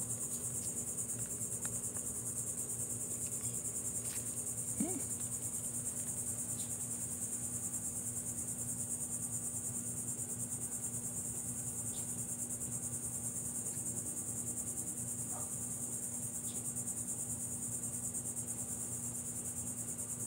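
Insects trilling in a steady, high-pitched outdoor chorus over a low, steady hum, with a few faint ticks and a short rising chirp about five seconds in.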